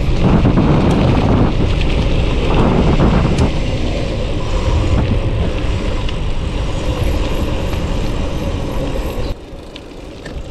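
Wind noise on the microphone and tyres rumbling over a gravel road as a gravel bike rolls along. The noise drops off suddenly about nine seconds in.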